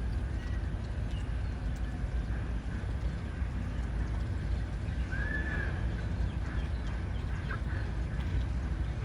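Steady low outdoor rumble, with a single short arched call from a bird about halfway through and a couple of faint chips later.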